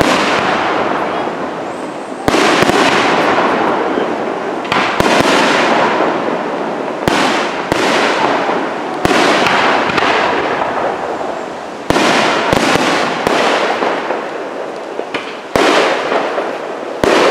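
Aerial firework shells bursting overhead: sharp bangs every second or two, often in quick pairs or triples. Each bang is followed by a long rolling echo that dies away.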